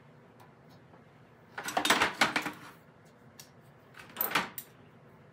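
Metal hand tools clattering as they are picked up and handled on a workbench, in two bursts: a longer, louder rattle about two seconds in and a shorter one near the end.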